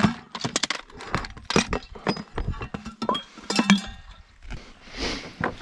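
A run of sharp clicks, clinks and knocks of gear and stones on a barnacle-covered rocky shore as fishing kit is gathered up and carried over the rocks.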